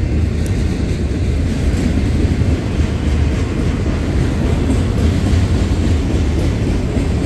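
Freight train's autorack cars rolling past close by, a steady low rumble of steel wheels on rail.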